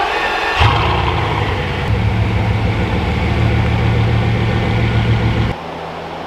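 Bugatti Veyron's quad-turbo W16 engine idling with a low, steady rumble, which grows fuller about half a second in. Near the end it drops away abruptly, leaving a fainter steady hum.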